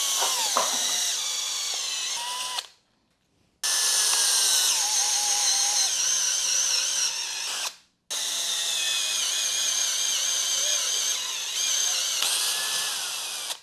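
Skil cordless drill with a spade bit boring holes through a wooden board, its motor whining under load with a wavering pitch. The drilling comes in three runs, each cut off abruptly by a short dead-silent gap.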